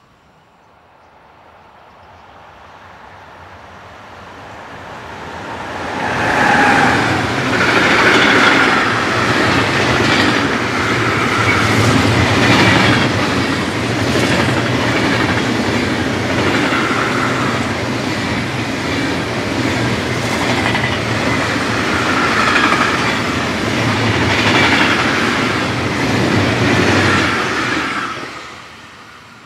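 Container freight train passing at speed: the rumble builds over the first six seconds, then the wagons' wheels clatter over the rails with a steady clickety-clack that repeats about every two seconds, until the sound falls away quickly near the end as the last wagon goes by.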